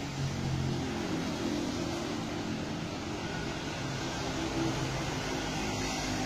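Steady traffic noise on a rain-wet road: a continuous hiss of tyres and rain with the low hum of passing engines.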